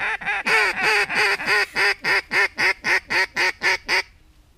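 Duck call blown in a fast run of loud quacks, about four to five a second, each note dropping in pitch, stopping about four seconds in.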